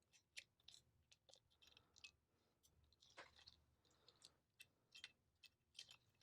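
Faint, irregular small clicks and taps of a smartphone's internal parts being handled with a tool, as flex-cable connectors are unplugged from the motherboard.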